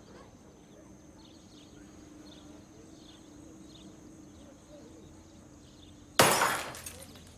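Faint quiet ambience with a low hum and short high chirps repeating every half second or so. About six seconds in comes a sudden loud bang that dies away over about a second.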